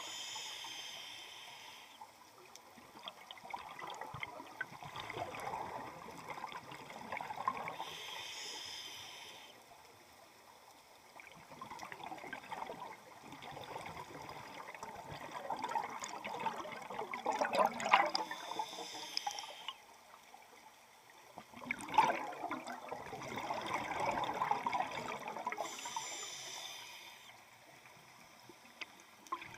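Scuba diver breathing through a regulator underwater. Every eight or nine seconds comes a short hiss of an inhale, and between the inhales there are long stretches of bubbling and gurgling as the exhaled air rises.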